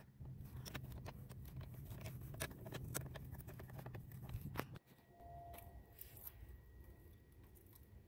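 Metal wrench clicking and scraping irregularly on a corroded car battery terminal clamp nut as it is worked loose. A low rumble underneath stops about five seconds in.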